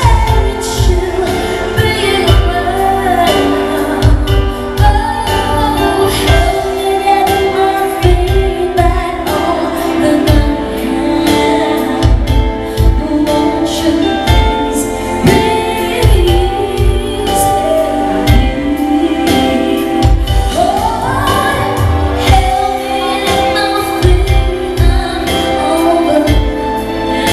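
A woman singing live into a handheld microphone over amplified backing music with a regular low beat.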